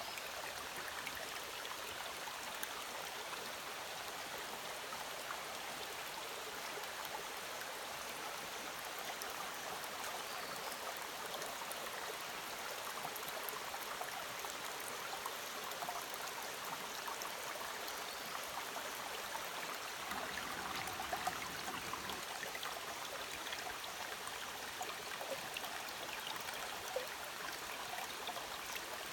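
Shallow forest stream running over pebbles and rocks: a steady babbling rush of water with small splashes and trickles. A short low rumble comes about two-thirds of the way through.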